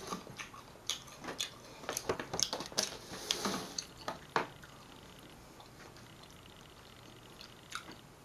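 Light clicks and taps of things being handled at close range, with a short rustle a little past three seconds in, then faint steady room hiss from about four and a half seconds in, broken by one more click near the end.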